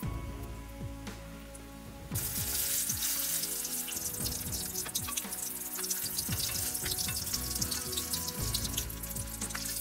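Hot vegetable oil deep-frying batter-coated stuffed tomato pakoras, bubbling and sizzling. The sizzle jumps much louder about two seconds in, as a fresh battered pakora goes into the oil. Background music plays underneath.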